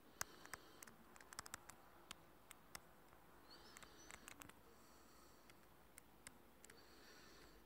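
Near silence: room tone with scattered faint irregular clicks and a few brief, faint high chirps.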